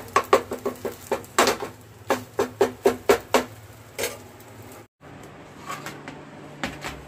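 A utensil clicking and tapping on cookware in quick succession, about four taps a second, over a steady low hum. Just before the five-second mark the sound cuts off abruptly, leaving a quieter hum with only a few faint taps.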